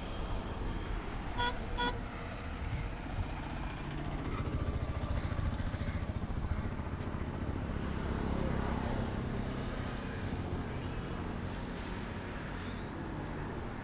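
Road traffic noise that swells and fades as vehicles go by, with two short horn toots about a second and a half in.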